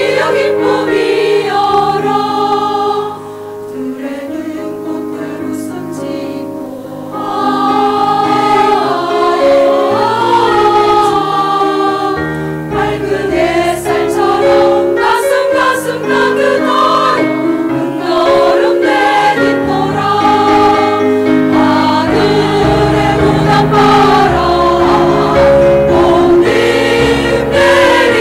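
A women's choir singing a Korean song over a sustained low accompaniment. The singing drops to a softer passage about three seconds in and swells back to full voice around seven seconds.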